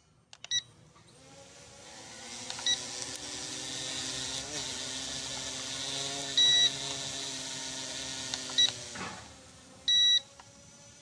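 Small P9S quadcopter drone's electric motors spinning up to a steady whine about a second in, running for several seconds, then winding down with a falling pitch near the end. Loud, short electronic beeps sound five times, the loudest things heard.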